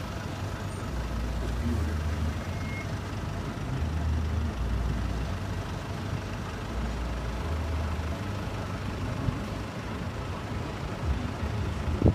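Steady road traffic noise from passing vehicles, with wind rumbling on the microphone in uneven gusts. A sharp knock near the end.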